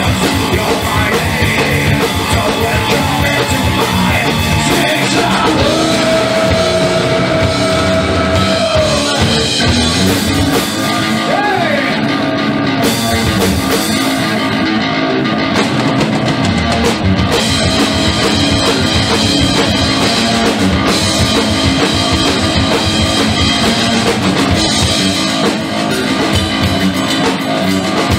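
Rock band playing live, with electric bass and drum kit; one note is held for about three seconds about five seconds in.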